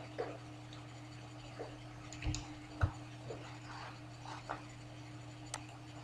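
Computer keyboard keystrokes and mouse clicks: about eight scattered short clicks over a faint steady low hum.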